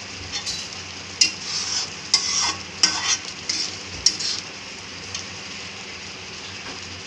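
Wooden spatula stirring and scraping a thick tomato-onion masala in a steel kadai, with a few sharp knocks of the spatula against the pan, while the masala sizzles steadily in the oil. The stirring stops about four and a half seconds in, leaving only the sizzle.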